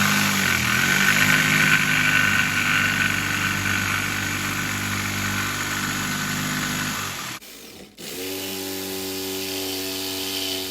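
Electric power saw running under load while cutting wood, steady with a motor pitch; it cuts off abruptly about seven seconds in and starts running again half a second later.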